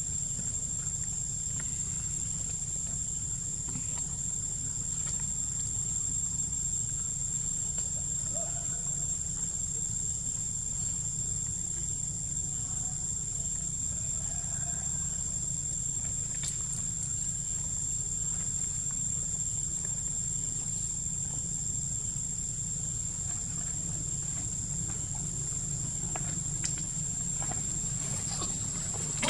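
Insects droning steadily with one continuous high-pitched whine, over a low steady rumble.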